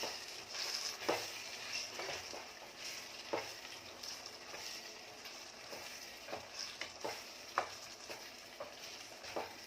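Tomato chilli chicken sizzling in oil in the pan while it is stirred, with a steady hiss and scattered clicks and scrapes against the pan.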